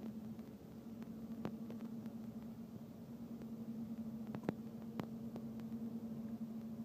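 Steady low electric hum from locomotives moving slowly through a rail yard, with a few sharp clicks along the way.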